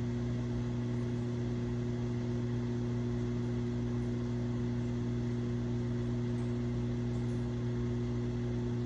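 Microwave oven running, a steady low hum with a faint hiss of its fan.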